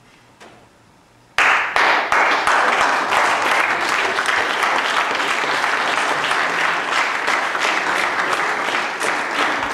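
An audience breaks into applause, starting suddenly about a second and a half in and continuing loud and dense.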